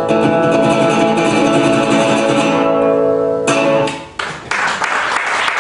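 Closing strummed guitar chord of a blues song ringing out, with a second short chord about three and a half seconds in. Applause starts near the end.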